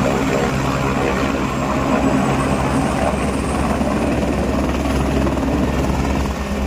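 Light helicopter running loud and steady at close range with its main rotor turning, as it lifts off the helipad.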